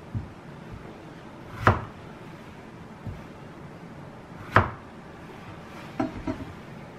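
Kitchen knife cutting strawberries on a plastic cutting board: two sharp knocks as the blade comes down through the fruit onto the board, with a few softer taps between, and a short cluster of knocks near the end.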